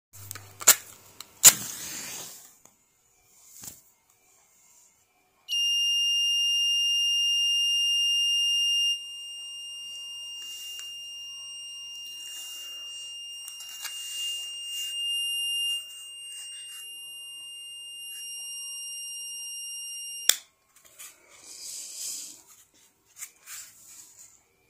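Alarm buzzer of an MQ-2 gas and smoke detector sounding one steady high-pitched tone for about fifteen seconds, the sign that the sensor has picked up gas or smoke. The tone drops in level a few seconds after it starts and cuts off suddenly. Clicks and handling rustles come before and after it.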